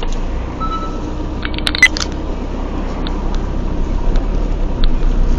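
Steady low engine and road rumble of a moving vehicle heard from inside the cab, with a short cluster of sharp clicks and knocks about one and a half to two seconds in.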